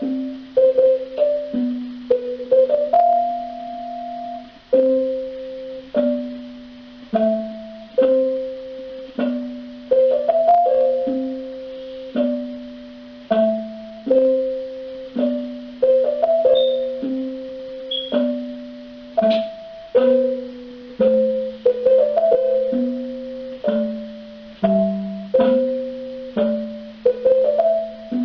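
Slow solo keyboard music with a piano sound: a simple melody over a lower line, each note struck and left to die away, roughly one note a second.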